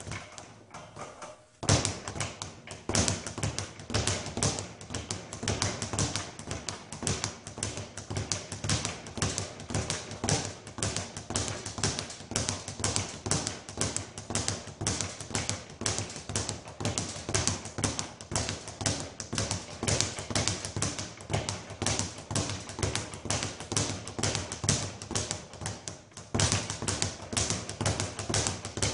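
Speed bag being punched in a fast, steady rhythm, the bag rattling back and forth against its rebound platform. The rhythm stops briefly at the start and picks up again about a second and a half in, with another short break near the end.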